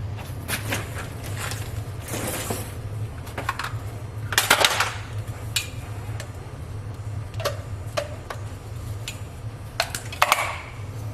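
Scattered clicks, knocks and clatters of tools and objects being handled and set down during workshop clean-up, over a steady low hum. A louder clatter comes about four and a half seconds in, and another near the end.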